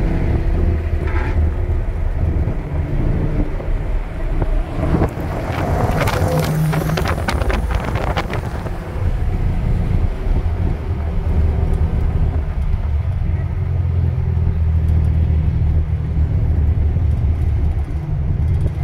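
The V8 of a modified VE Commodore SS running under load as it is driven round the track, heard from inside the cabin. A stretch of crackly noise rises over it in the middle.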